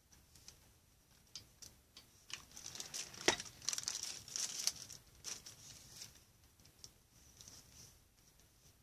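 Cellophane sheet crinkling and rustling as it is handled and pressed onto a hot-glued foamboard frame, with scattered small ticks and one sharper tap a little over three seconds in.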